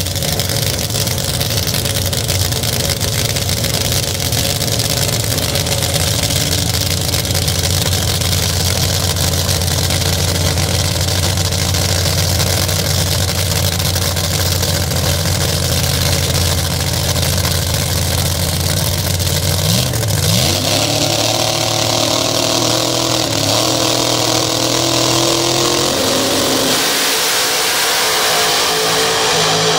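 Funny car drag racing engines idling loudly and steadily at the starting line, then revving up and launching about two-thirds of the way in, rising in pitch as the cars accelerate down the strip. The deep rumble drops away near the end as they pull off.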